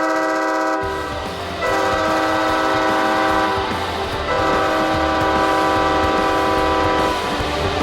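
San Diego Gulls arena goal horn sounding three long, steady, multi-tone blasts. The first cuts off about a second in, the second lasts about two seconds, and the third, the longest, stops shortly before the end.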